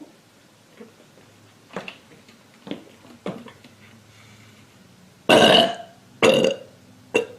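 A girl burping loudly after drinking carbonated Pepsi: two long burps about five and six seconds in, then a short one near the end.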